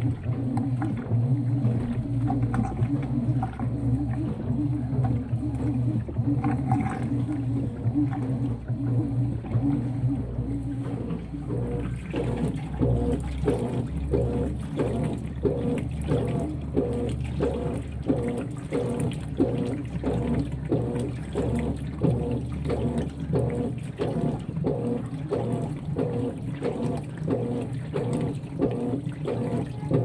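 Top-load washing machines agitating a load of towels in water. First a Brastemp Vantage basket turns with a steady motor hum and sloshing. From about twelve seconds in, a Consul 16 kg top-loader's agitator swings the soaked towels back and forth, a regular swish about twice a second.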